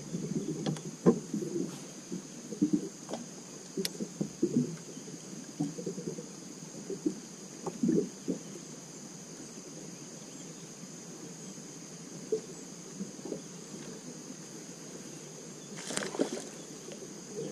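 Scattered light knocks and rustling of gear being handled in a fishing boat, over a steady high-pitched buzz.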